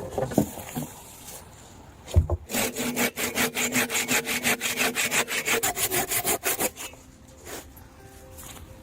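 A hand saw cutting through wood in quick back-and-forth strokes for about four seconds, starting just after a low thump.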